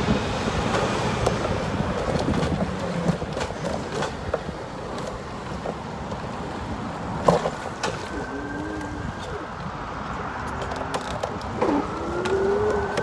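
City street traffic: a steady hum of cars with vehicles passing, louder near the end, and a single sharp knock about seven seconds in.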